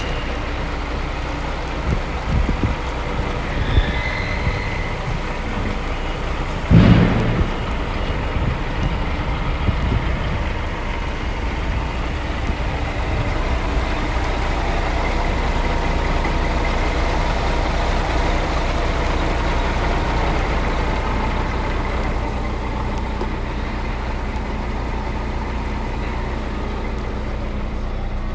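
Scania G420 truck's diesel engine idling steadily, with a single loud thump about seven seconds in.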